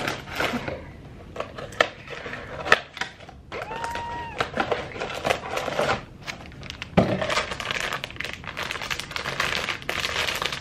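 Labubu blind-box packaging being opened by hand: cardboard and wrapping rustling and crinkling, with scattered clicks and taps and one sharp knock about seven seconds in.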